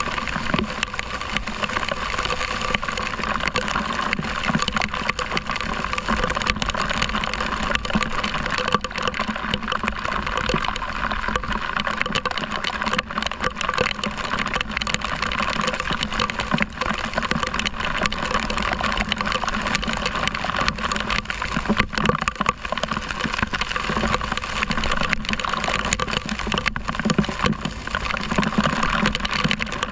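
Heavy rain and tyre spray on a wet road heard from a moving motorcycle, a steady wash of water noise with the motorcycle's engine running underneath.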